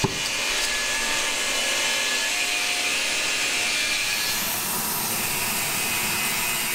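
Oxy-fuel gas torch flame burning with a steady loud hiss, starting with a sharp pop, as it heats a seized bolt and pivot in a seed drill's depth adjuster to free it.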